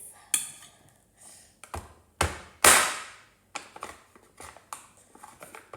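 A table knife being cleaned: a few knocks and clicks of the knife and utensils, and a louder rush of noise lasting about a second between two and three seconds in, then light ticking handling sounds.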